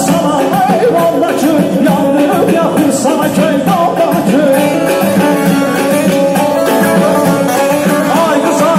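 Man singing an Azerbaijani wedding song through a handheld microphone and PA, his ornamented melody wavering over a loud, steady amplified band accompaniment.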